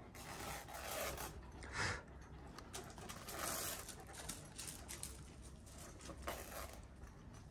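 Two young Kangal dogs playing with a crumpled white scrap on gravel: crackly rustling as it is chewed and tugged, with paws scuffing the gravel. A louder short scuffle comes about two seconds in.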